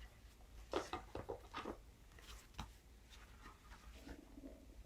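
Soft rustling and a few light taps of paper and card being handled, most of them in the first two seconds, over quiet room hum.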